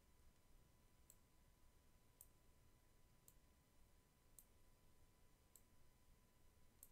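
Near silence: room tone with faint, short clicks about once a second.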